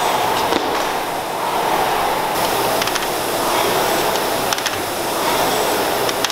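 Concept2 air rowing machine's fan flywheel whirring as strokes are pulled, swelling and easing with each stroke, with a few light clicks.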